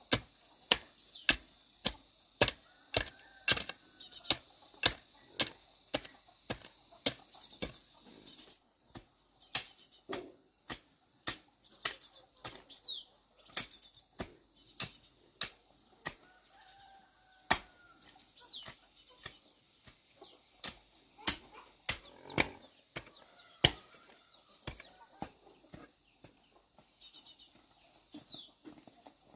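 An irregular run of sharp clicks and snaps, about one to two a second, with small birds chirping and whistling high over them.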